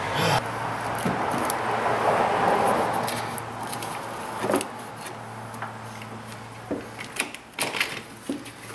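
Clicks and knocks of hand-handled plastic and metal engine parts as an ignition module and its wiring are fitted back in an engine bay, over a steady low hum. A rushing noise fills the first three seconds.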